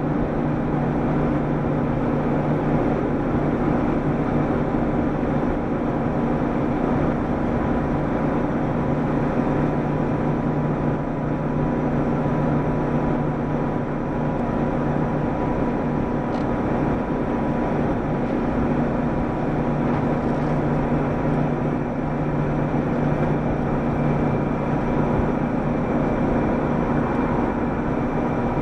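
Mitsubishi Fuso Aero Star city bus (PDG-AA273KAN) running between stops, heard from inside the cabin: a steady diesel engine drone over road noise.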